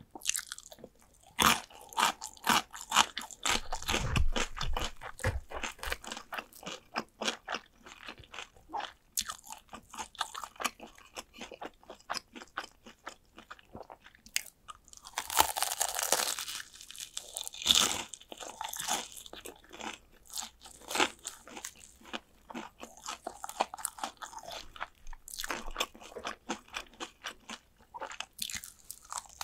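Close-miked crunching and chewing of fried chicken drumsticks: many sharp, crisp crunches of the battered skin, with a louder, longer run of crunching about halfway through.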